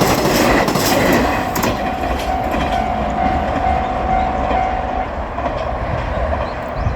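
Diesel railcar train running over a level crossing: wheels clicking over the rail joints for the first second or so, then the running noise slowly dying away. A steady high tone sounds through the middle.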